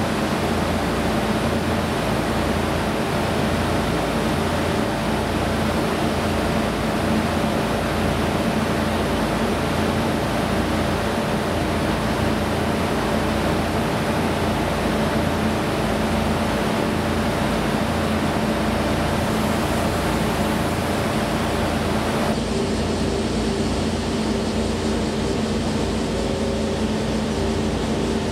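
Steady mechanical hum and rushing noise of railway station ambience, with a couple of steady droning tones under it. About three-quarters of the way through, the sound changes abruptly and the hiss drops away.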